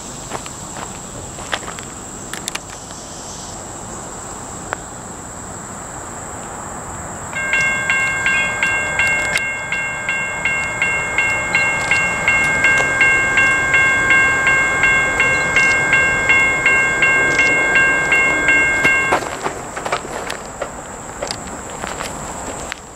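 General Signals Type 1 electronic railroad-crossing bell sounding as the crossing signal activates for an approaching train. It starts about seven seconds in with rapid, evenly repeated dings, rings for about twelve seconds and then cuts off suddenly.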